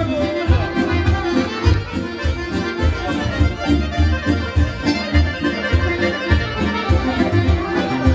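Balkan folk dance music led by an accordion, with a quick steady drum beat and pulsing bass.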